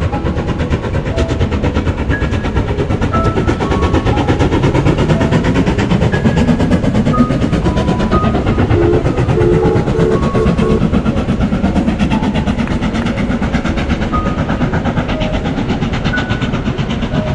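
Jacobite steam train passing over a stone viaduct: a steady, fast clatter of wheels on the rails as the locomotive and its carriages run by.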